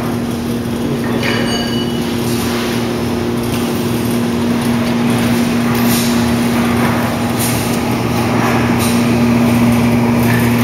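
Electric fan of a fixed-bed dryer running steadily: a constant motor hum over rushing air, with a few faint knocks.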